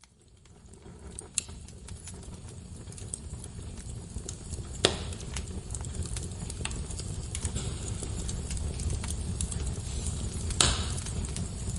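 Wood fire burning in a fireplace: a steady low rumble of flames with frequent small crackles, fading in over the first few seconds. Two louder sharp pops, one about five seconds in and one near the end.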